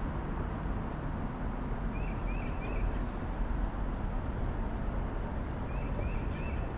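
Steady outdoor rushing noise with a small songbird calling over it. The bird gives a quick phrase of three short high notes twice, about four seconds apart.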